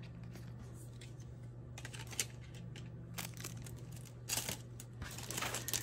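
Light rustling and crinkling of clear plastic packaging being handled, with scattered small clicks, busier near the end.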